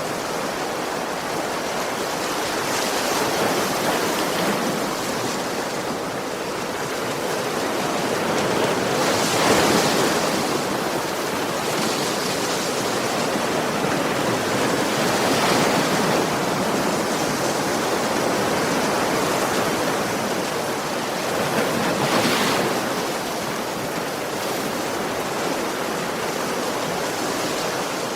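Ocean waves breaking on a shore: a steady wash of surf that surges about every six seconds as each wave breaks.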